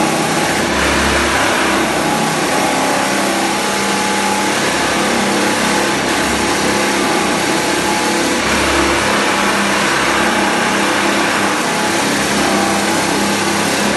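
Walk-behind floor sander running steadily as it is pushed across parquet wood flooring, sanding the blocks: an even machine hum over a steady hiss.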